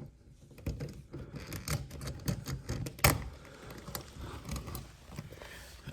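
Small metallic clicks, taps and light rattles from handling the long receptacle mounting screws, the outlet and the box extender, with one sharper click about three seconds in.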